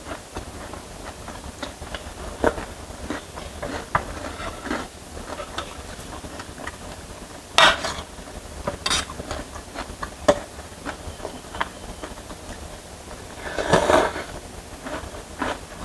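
Close-up eating sounds: a spoon and fork clinking and scraping in a stainless-steel tray of instant noodles, with chewing, a couple of short slurps about halfway, and a longer noodle slurp near the end.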